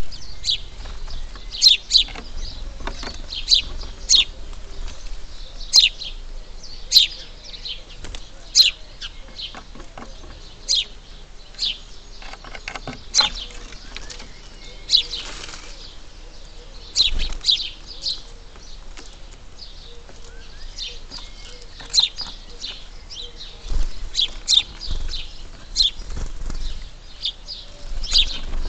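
Small birds chirping: many short, sharp, high chirps in irregular flurries, with a brief whirr like wing flutter about halfway through.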